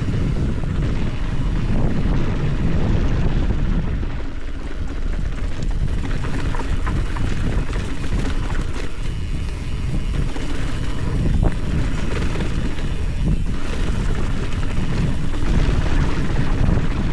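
Wind rushing over the camera microphone as a mountain bike runs fast down a dusty dirt trail, with the tyres rolling on sand and gravel and a few sharp clicks from the bike over bumps.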